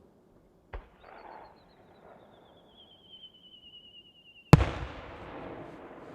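An aerial firework shell is launched from its mortar with a sharp thump, then whistles as it climbs; the whistle wavers and slowly falls in pitch. About four seconds later the shell bursts with a loud bang, followed by a long rumbling, crackling tail.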